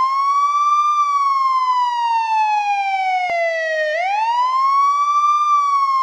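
Police siren wailing in a slow up-and-down pitch sweep. It climbs, slides down for about three seconds, then sweeps quickly back up about four seconds in before starting down again.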